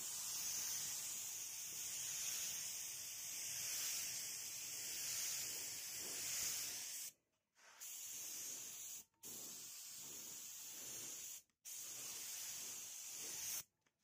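Aerosol spray paint hissing as a glossy coat goes onto a motorcycle helmet shell: one long spray of about seven seconds, then three shorter bursts with brief pauses between them.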